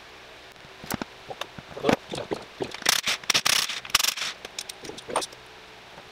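A cordless impact wrench zips in a few short bursts, loosening aluminium transaxle case bolts, among clinks and knocks of metal tools and parts being handled.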